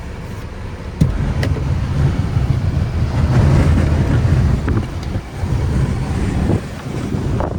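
Strong blizzard wind buffeting the microphone in heavy, uneven gusts of low rumble. A sharp click about a second in is followed by a surge of wind noise.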